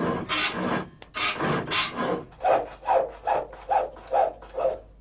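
Hand file strokes on metal, a knife's nickel-silver guard being filed. The first strokes are bright and rasping, then about halfway through they settle into an even rhythm of about two strokes a second, and they stop shortly before the end.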